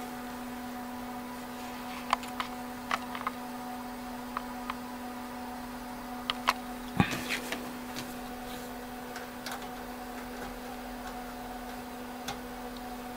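Steady hum of the Tektronix TDS 340 oscilloscope's cooling fan running with a normal sound, its hub cleared of dust. Scattered light clicks and knocks of handling cut in, the loudest a thump about seven seconds in.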